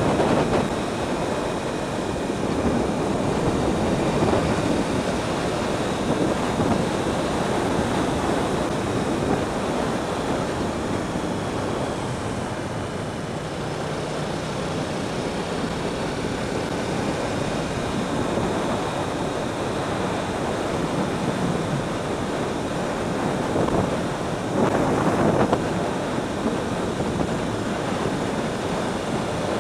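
Motorcycle ridden at road speed, heard as steady wind rushing over the camera microphone with the Yamaha YZF-R1's engine running underneath. The rush swells louder briefly near the end.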